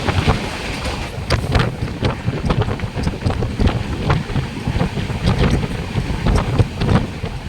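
Moving train with wind buffeting the microphone over a steady low rumble, and irregular sharp clicks and rattles several times a second.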